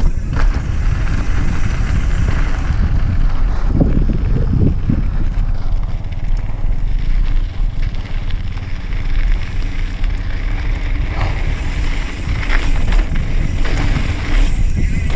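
Wind buffeting the camera microphone over the rumble of a YT Capra AL Comp enduro mountain bike's tyres on a dry, loose dirt trail during a fast descent.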